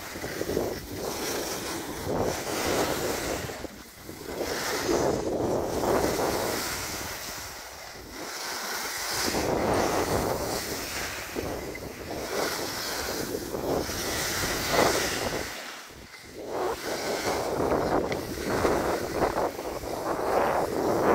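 Skis sliding and scraping over tracked snow on a downhill run, with wind rushing over the microphone. The noise swells and fades every few seconds.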